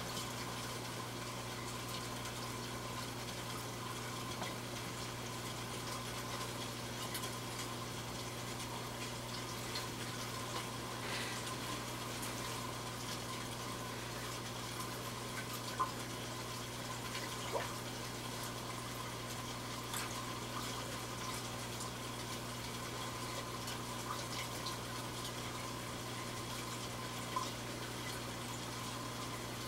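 Aquarium water circulation running: a steady rush of moving water over a low, constant pump hum. A few brief faint pops stand out, around the middle and near the end.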